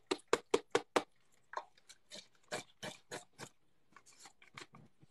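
Broth glugging out of a tipped carton into a pot of chili. There is a fast run of loud glugs in the first second, then fainter, slower glugs that die away near the end.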